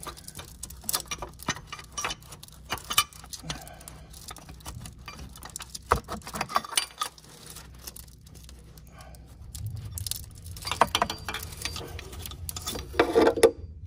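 Irregular clicks, scrapes and light metallic clinks of hands and tools working on engine parts close to the microphone, with a louder cluster of clatter near the end.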